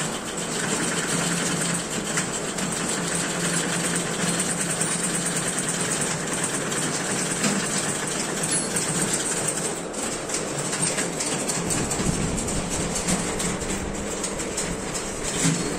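Several manual typewriters clattering at once as students type: a dense, continuous stream of key strikes.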